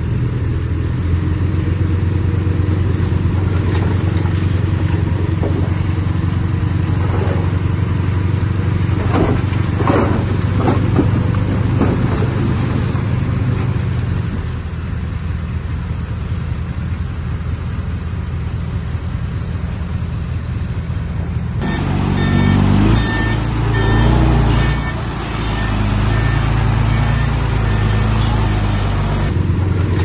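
Diesel engines of earthmoving machines, a small bulldozer and mini dump trucks, running under load with a steady low engine note. A few clanks come around ten seconds in. The engine sound changes abruptly about two-thirds of the way through and changes back shortly before the end.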